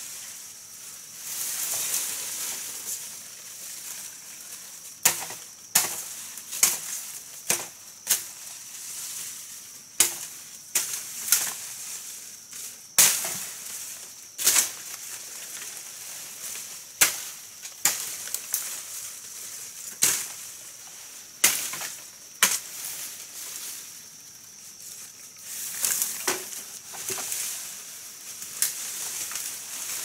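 Irregular sharp strikes of a tool chopping wood, sometimes several a second and sometimes with pauses of a second or two between them, over a steady high hiss.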